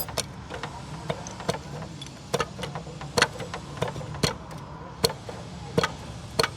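Irregular metallic clicks and clinks of tools and parts being handled during an engine overhaul, about two a second, the first ringing loudest, over a steady low hum.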